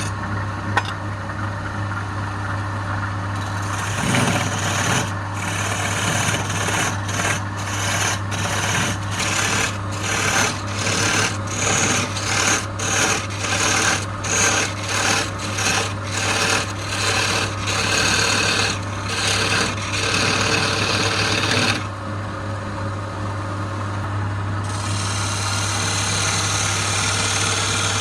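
Wood lathe running with a steady motor hum while a turning tool cuts the spinning wood. The cutting comes in repeated short strokes, about one a second, for much of the time, eases off, then returns as a steady cut near the end.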